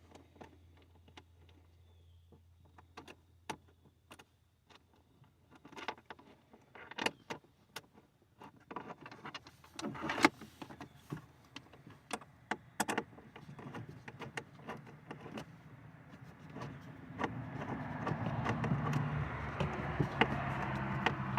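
Scattered clicks and knocks of wire connectors and battery-terminal hardware being handled and fitted. Over the last several seconds a louder steady whir, like a small motor running, builds up.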